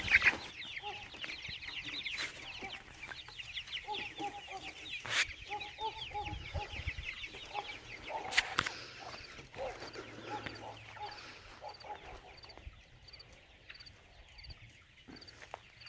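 Chickens clucking in short low calls, under a dense patter of quick high chirps that thins out about halfway through. There are a few sharp knocks along the way.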